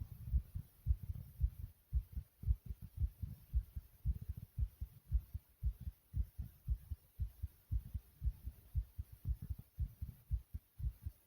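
A person's heartbeat recorded close up, fast and pounding: a quick, steady run of low thumps, several a second.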